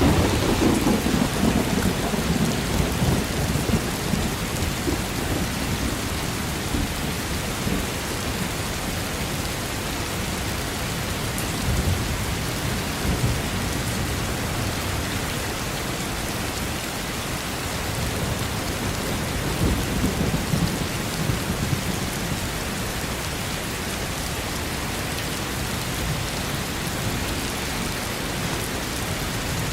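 Steady heavy rain falling, with low rolls of thunder rumbling at the start and again around twelve and twenty seconds in.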